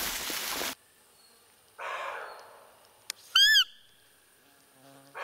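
A roe deer call (lure) gives one short, high, arched peep about three and a half seconds in, just after a click, imitating a roe doe to draw in the buck. A steady noise cuts off under a second in, and brief hoarse sounds that fade out come around two seconds and again at the end.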